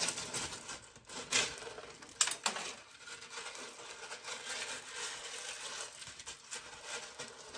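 Hydroton expanded clay pebbles rustling and clicking against each other as a hand scoops a hollow in them, with a few sharper clicks between one and three seconds in.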